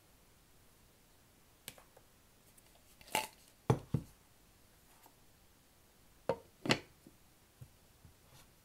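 Tealights in aluminium cups handled from a wooden jar and set down, then the jar's wooden lid put back on. The sound is a few separate clicks and knocks: a clatter and two low thuds a little after three seconds in, the loudest, and two more knocks a little after six seconds in.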